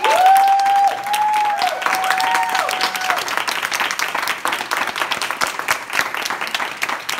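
Audience applauding steadily. A few high, held calls rise over the clapping in the first three seconds.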